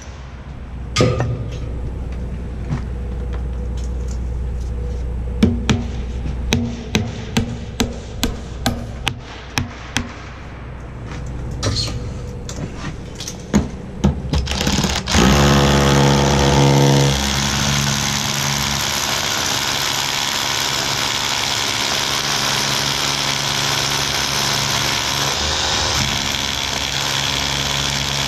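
A steady low engine hum with a run of about a dozen sharp knocks, roughly two a second, in the middle. About fifteen seconds in, a louder, hissing machine noise takes over and runs on steadily.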